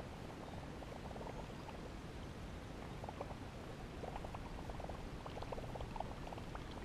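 Faint gurgling and small irregular splashes of water, a quick patter of little ticks that grows busier in the second half.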